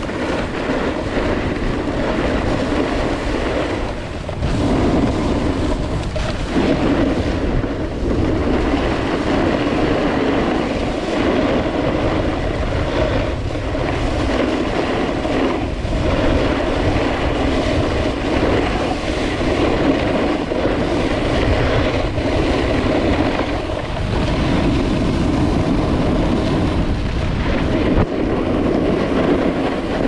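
Snowboard sliding and carving down hard-packed groomed snow: a continuous rough scraping of the board on the snow, with wind buffeting the microphone.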